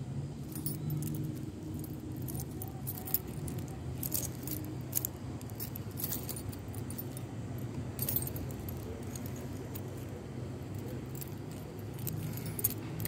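Light metallic jingling and scattered clicks come and go over a steady low hum.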